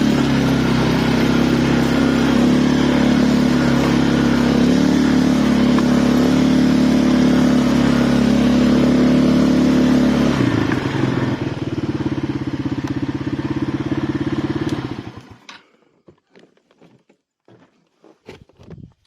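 ATV engine running steadily, dropping to a lower idle about ten seconds in and shutting off about five seconds later. A few faint knocks follow.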